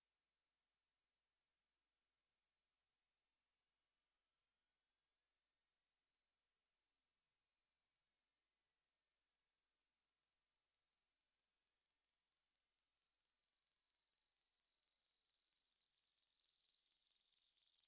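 A hearing-test sine tone: one pure, very high whistle that slides slowly downward in pitch in small steps, growing louder over the first two seconds and then holding steady.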